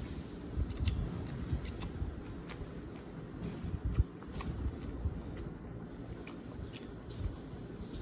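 Close-up chewing and wet mouth sounds of eating, with scattered soft clicks and squishing as fingers mix rice and curry on the plate; one sharper click about four seconds in.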